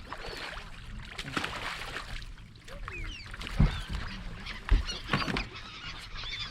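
A flock of waterbirds calling over the lake, many short overlapping squawking calls. A few low thumps come through about halfway in, louder than the calls.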